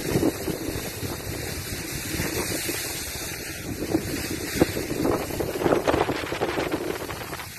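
Wind buffeting the microphone during a downhill ski run, with skis scraping over the packed, rutted snow. A few louder scrapes come past the middle.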